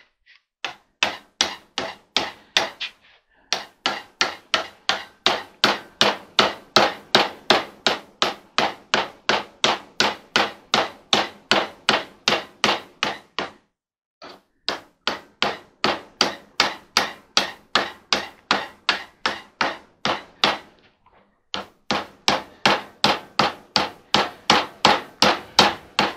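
Ball-peen hammer tapping steadily, about three light strikes a second, in long even runs broken by a few short pauses, working a tool along the glued felt on a clothes dryer.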